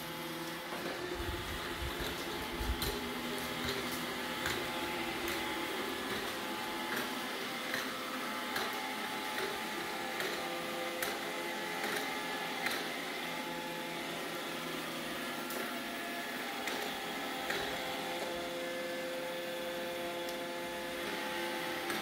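Roomba robot vacuum running on a tile floor: a steady whirring hum from its motors and brushes, with scattered sharp clicks.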